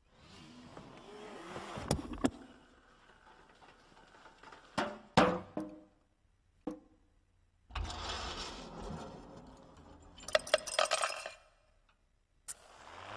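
Honda car parts setting each other off in a chain reaction: metal parts knocking and tipping, a stretch of rolling noise on a wooden floor about eight seconds in, then a quick run of clinks and a sharp click near the end.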